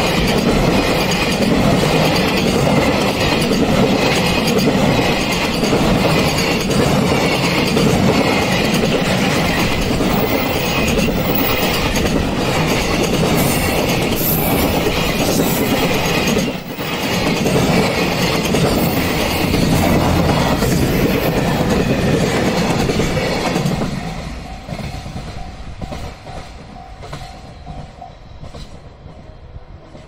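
Container freight train passing close by at speed, its wheels clattering over the rails as the wagons go by. The noise drops away about 24 seconds in as the last wagons pass.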